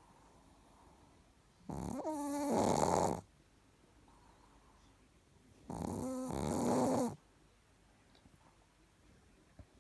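Chihuahua snoring in its sleep: two snores about four seconds apart, each lasting about a second and a half and carrying a pitched tone.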